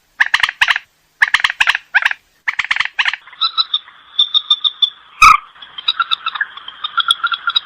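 Rail (burung mandar) calling: short harsh notes in quick clusters, then a continuous fast croaking chatter from about three seconds in. There is a sharp click a little past five seconds.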